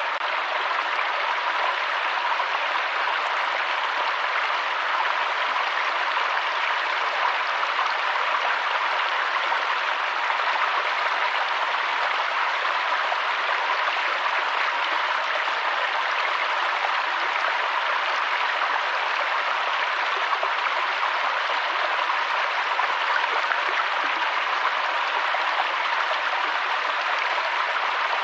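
Waterfall: a steady, unchanging rush of falling water, mostly hiss with little deep rumble.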